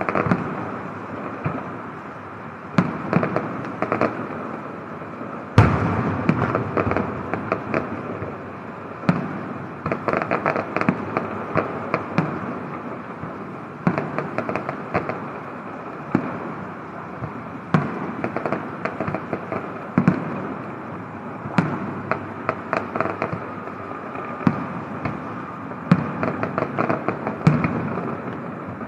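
Fireworks display: a steady din of bursting shells with many sharp bangs at irregular intervals, the loudest about six seconds in.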